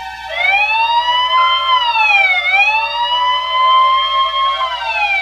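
A wailing siren starts just after the opening, its pitch sweeping slowly up and down about twice.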